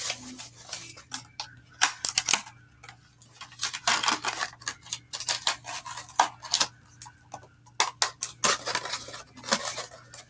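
Papers and small items being handled and packed close by: irregular rustling, clicking and light clattering in short bursts with brief pauses.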